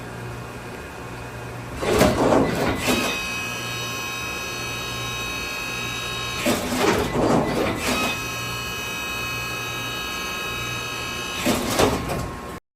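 Brother Speedio high-speed CNC drilling and tapping center running a cycle over a steady low hum. A high-pitched, multi-toned spindle whine holds for a few seconds at a time and is broken by three louder noisy bursts about four and a half seconds apart. The sound cuts off abruptly just before the end.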